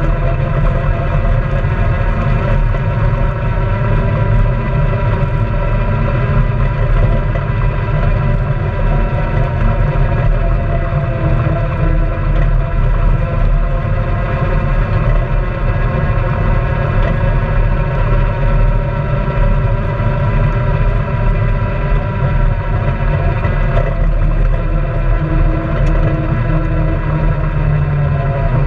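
Honda Pioneer 700-4 side-by-side's single-cylinder engine running steadily at cruising speed on a gravel trail, its pitch dipping slightly near the end as it eases off.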